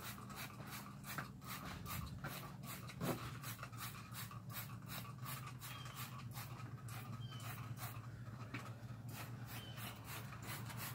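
Trigger spray bottle of mildew stain remover squirting onto vinyl boat seats in quick, evenly spaced hissy pumps, about three a second, over a low steady hum.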